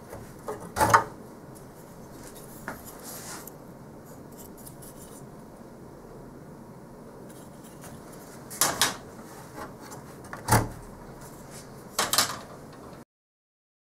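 Clicks and knocks of a plug-in circuit card being worked out of its card-edge slot in a network switch chassis and handled, with the sharpest knock about a second in and a few more near the end, over a low steady hiss.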